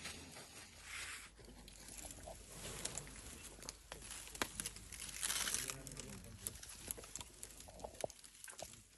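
Close crackling, rustling and tapping from an African elephant's trunk brushing and exploring right at the microphone, in a string of sharp clicks with a louder stretch of crackling about five seconds in.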